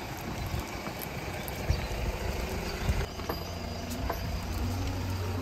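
Outdoor ambience: a low rumble of wind or distant traffic with footsteps. A few sharp clicks about three seconds in, as a café's wood-framed glass door is opened.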